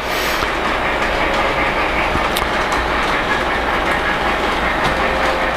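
Lionel LionChief Plus 2.0 O-gauge Berkshire 2-8-4 model steam locomotive and its cars running steadily down a grade on three-rail track, with occasional light clicks over the rail joints.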